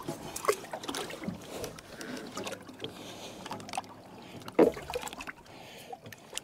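Irregular clicks, knocks and light water splashing from hands working a boat's transom-mounted sonar transducer at the waterline, with one louder knock about four and a half seconds in. The transducer had tilted up out of position and is being pushed back down.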